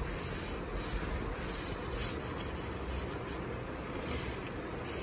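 Rag rubbing back and forth over a stained wood veneer panel, wiping off the excess wood stain just brushed on; a steady scrubbing rub.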